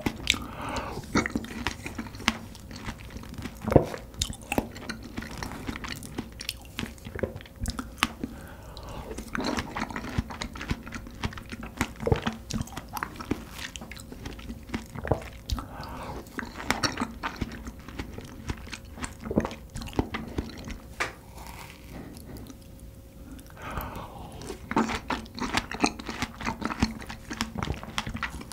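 Close-miked chewing and biting of fresh strawberries with whipped cream and Nutella, with wet, juicy mouth sounds. There are frequent short clicks, including a wooden fork tapping the wooden board as he picks up the next piece.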